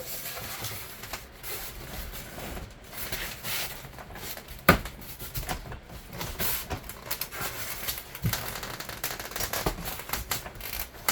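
Foam insulation board being pushed and wedged into a garage door panel's recess by hand: irregular rubbing and scraping with scattered clicks and knocks, and one sharp knock about halfway through.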